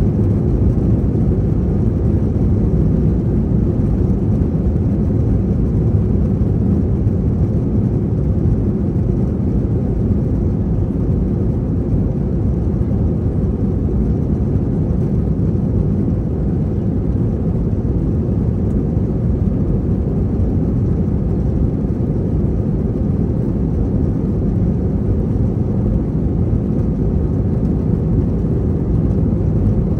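Steady low rumble of an Airbus A321 heard from inside the passenger cabin while the jet taxis, its engines at low taxi power.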